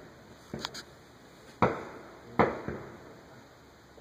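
Aerial fireworks bursting: a faint pop with a short crackle about half a second in, then two loud bangs less than a second apart, the second followed quickly by a smaller one. Each bang trails off in an echo.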